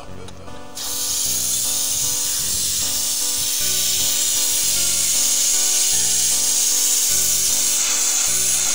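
Background music of held notes changing every second or so, joined about a second in by a loud steady hiss that carries on over it.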